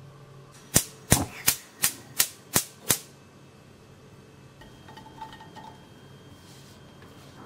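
Gas hob's electric spark igniter clicking seven times in quick succession, about three clicks a second, as the burner is lit.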